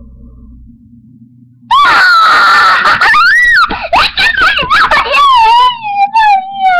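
A child's loud, high-pitched squealing and screaming, the pitch swooping up and down, starting suddenly a little under two seconds in after a quiet stretch with a low hum.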